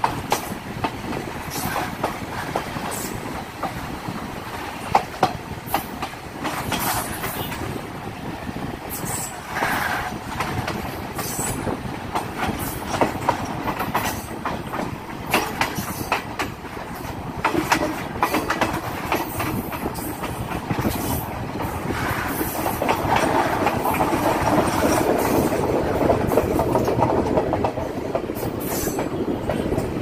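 Passenger train running on rails, a steady rumble of wheels on track with frequent short clacks as the wheels pass over rail joints. The rumble grows louder for a stretch about two-thirds of the way through.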